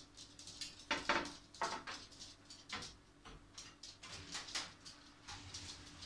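A thick 5 mm glass plate being handled and set in place, knocking and clinking against hard kitchen surfaces with short ringing knocks, the loudest about a second in and smaller taps following over the next few seconds.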